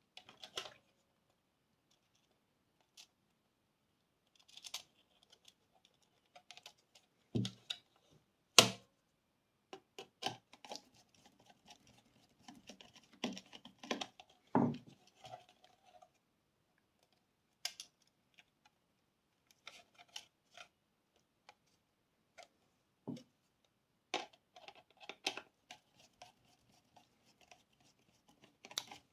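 Hands working on intercom wiring and small plastic parts: scattered clicks, scratches and small knocks, with one sharper knock about nine seconds in.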